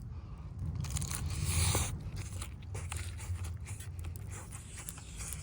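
Biting into crisp pan-fried gyoza and chewing, with the loudest crunch about one to two seconds in and small scattered clicks after, over a steady low hum.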